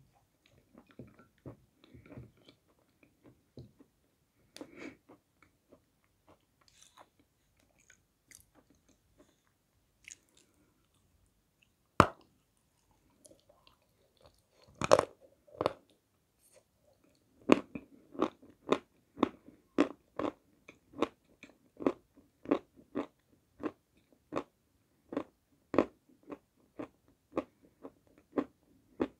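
A dry chunk of white edible clay being bitten and chewed: a sharp snap as it is bitten about twelve seconds in, then crunches, settling into a steady crunching at about two a second as it is chewed.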